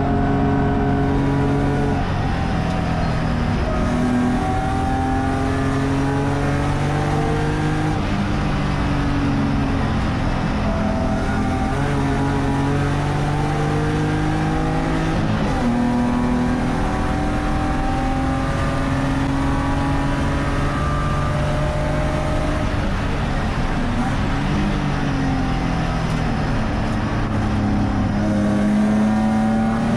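Spec3 race car engine at racing speed, its pitch climbing repeatedly under full throttle and dropping at each gear change, then falling away and climbing again as it slows for corners and accelerates out.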